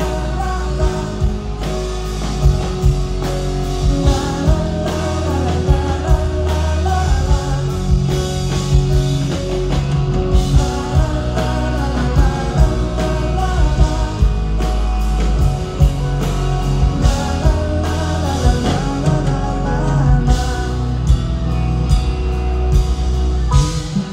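A live band plays a rock-style song while a singer sings into a microphone, over a steady bass and drum beat.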